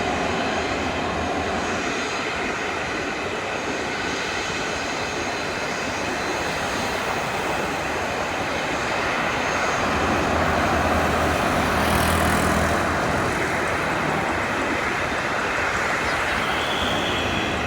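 Boeing 737 jet engines running with a steady rushing noise and a low hum, swelling a little about ten seconds in.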